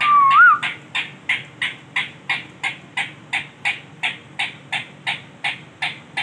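Male ring-necked parakeet calling: a steady run of short, harsh notes, about three a second. The run follows a single smooth whistle that rises and falls at the very start.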